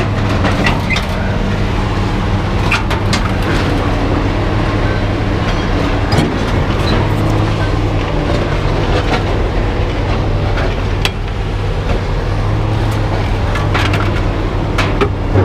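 An engine running steadily with a low, even hum, with scattered short metal knocks and clanks over it.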